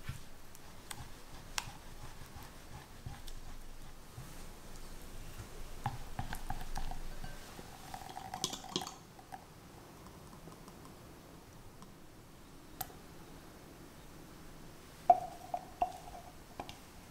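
A silicone spatula stirs custard-like anglaise sauce and white chocolate in a glass bowl, with soft wet scraping and sloshing for the first nine seconds or so, ending in a brief clink that rings. About fifteen seconds in come three sharp clinks with a short ring off the glass.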